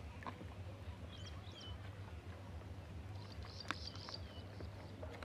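Faint bird calls: a pair of short chirps about a second in, then a longer run of calls from about three to four seconds in. A few light clicks and a steady low hum run beneath them.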